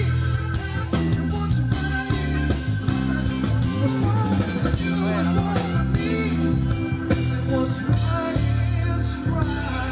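Live rock band playing: electric guitar, bass and drums, with a singer's voice over them.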